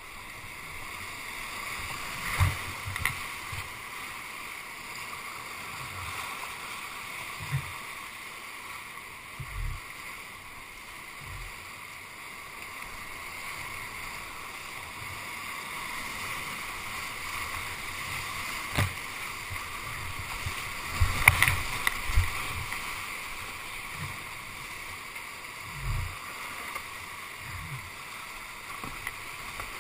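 Whitewater rapids rushing steadily around a paddled kayak, with a few sudden thumps and splashes against the boat and paddle, the sharpest about two-thirds through.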